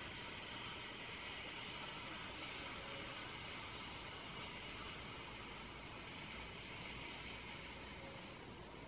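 A long, steady 'sss' hiss breathed out slowly through the teeth: the lung healing sound of Taoist Qi Gong, made fairly audibly. It eases off a little near the end.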